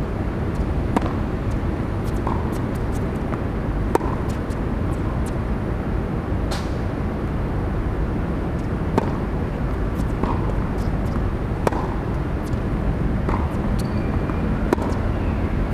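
Tennis ball struck by rackets during serves and a rally: single sharp pops a few seconds apart, the first about a second in, over a steady low rumble.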